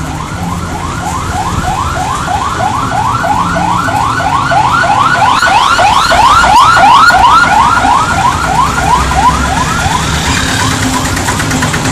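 Electronic alarm chirping: a rising sweep repeated about three times a second, growing louder toward the middle and stopping about ten seconds in.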